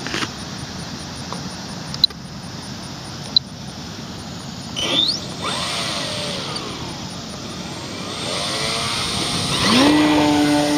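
Electric RC plane's brushless motor and 13x6.5 propeller rising and falling in pitch with throttle, then climbing near the end to a steady whine, with two sharp clicks early on. The motor runs free of the creaking noise that the flight logger on the speed controller had been causing.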